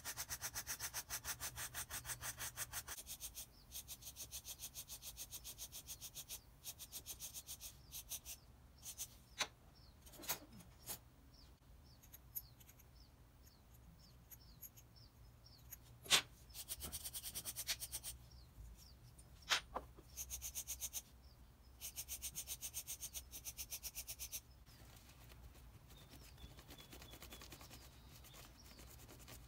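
Hand wire brush scrubbing grime off small brass plane parts in rapid back-and-forth strokes. The scrubbing comes in several bursts of a few seconds each, with a few sharp clicks between them, and goes quieter near the end.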